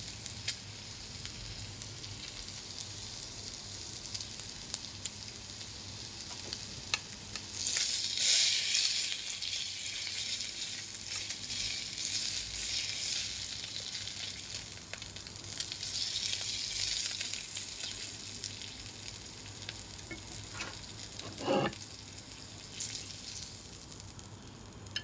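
Pork slices sizzling on a hot electric grill plate, a steady hiss that swells louder twice, about eight and sixteen seconds in, as the meat is turned. Wooden chopsticks tap against the grill plate now and then, with a short scrape near the end.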